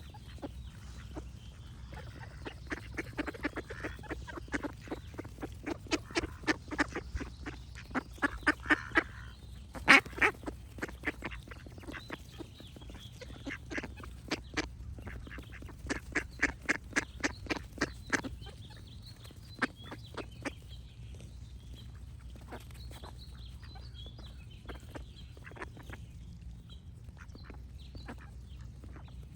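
Ducks quacking in fast, excited runs of short quacks, busiest in the first half and thinning out after that. Faint songbird warbling goes on behind them, over a steady low rumble.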